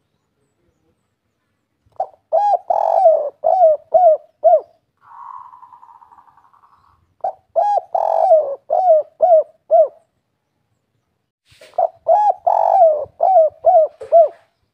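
Spotted dove (tekukur) singing its 'kuk 3' song: three phrases of rapid, falling coos, each a run of about seven notes, with pauses of a few seconds between phrases.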